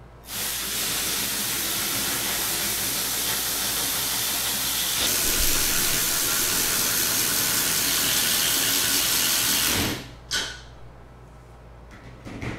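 Milwaukee 12-volt brushed-motor 3/8-inch cordless ratchet running continuously as it spins nuts down threaded bolts, a steady whirring rush that gets a little louder about halfway and cuts off suddenly near the end, followed by one short burst.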